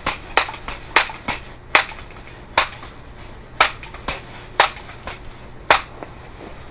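A series of about ten sharp clicks or taps, close together at first and then about one a second.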